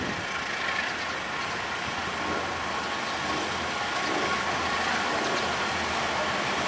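Diesel-electric locomotive approaching at speed, its engine running steadily and growing gradually louder as it draws near.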